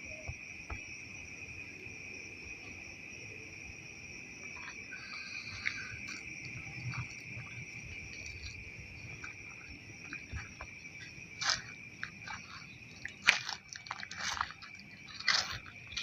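Steady high-pitched drone of night insects chirring. From about two-thirds of the way in come loud, irregular crunches, like dry leaves and twigs being trodden on.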